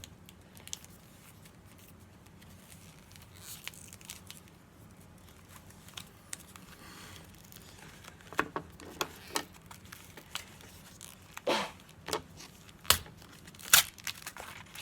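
Foil Pokémon card booster pack being handled and torn open, crinkling. Quiet rustling at first, then a run of sharp crackles from about eight seconds in, loudest near the end.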